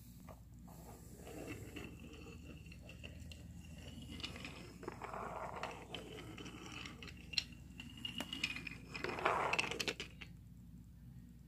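Toy train engine pushed by hand over plastic and wooden track pieces: short clicks and knocks of the wheels and body on the track, with a couple of longer rustling rushes, the louder one about nine seconds in.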